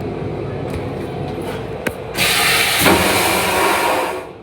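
Vacuum toilet in a Metro-North M8 railcar flushing: a click about two seconds in, then a loud rushing whoosh of about two seconds that cuts off suddenly, over a steady low rumble.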